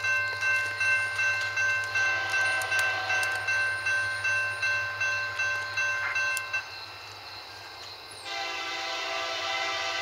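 Railroad crossing bell ringing about twice a second, stopping about six and a half seconds in. About eight seconds in, an approaching locomotive's air horn sounds a loud, steady chord and is still sounding at the end.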